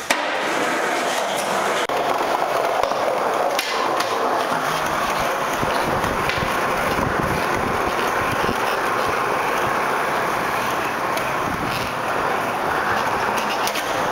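Skateboard wheels rolling over smooth concrete and tile, a steady rumbling roll broken by a few sharp clacks of the board popping and landing.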